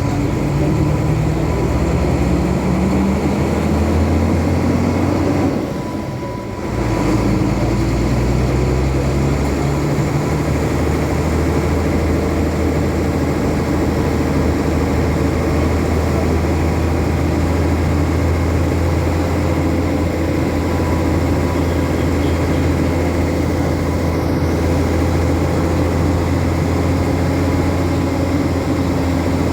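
Road vehicle engine and road noise while driving. The engine pitch rises over the first few seconds, the sound drops briefly about six seconds in, and then a steady low drone carries on.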